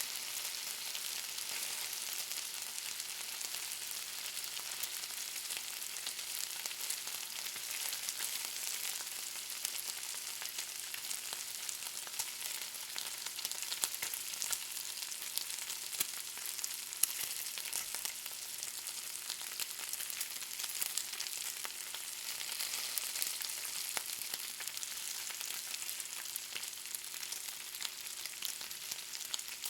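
Bacon sizzling in a pan: a steady high hiss of frying fat, full of fine crackles, with a few louder pops around the middle.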